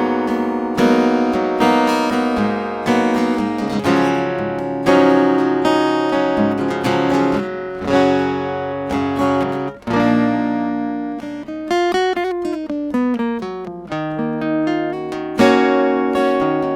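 Strinberg SD201 HCR steel-string acoustic guitar played plugged in through its built-in preamp. It is strummed in chords and picked note by note, with one chord left ringing for a few seconds about two-thirds of the way through before the playing resumes.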